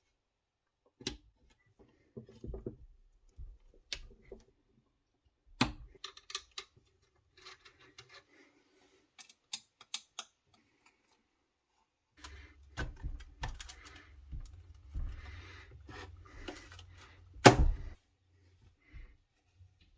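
Computer parts and small hardware being handled and fitted: scattered clicks and taps with some rustling, a knock about six seconds in, and a sharper, louder knock near the end.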